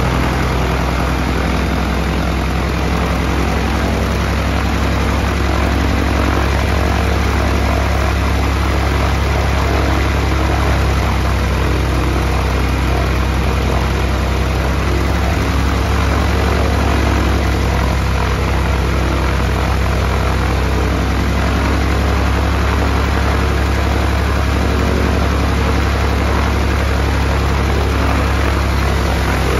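The freshly installed Continental IO-520-BB fuel-injected flat-six of a 1949 Ryan Navion running steadily on its first run, with its propeller turning and the cowling off.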